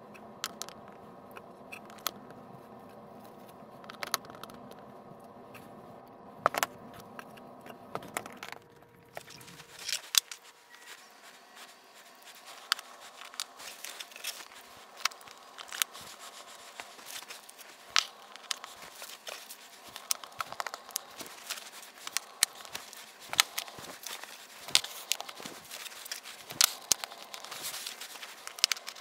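Pieces of cut glass mosaic tile being handled and set down on a backer board: scattered sharp clicks and light crinkling, much busier after the first third. A steady hum runs under the opening seconds and stops abruptly.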